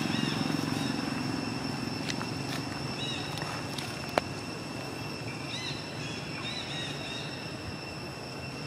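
Outdoor ambience: a steady high-pitched drone throughout, with a few short chirps, a low rumble that fades over the first couple of seconds, and one sharp click about four seconds in.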